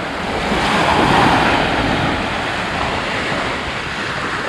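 Small waves breaking and washing up onto a sandy beach, swelling louder about a second in, with wind buffeting the microphone.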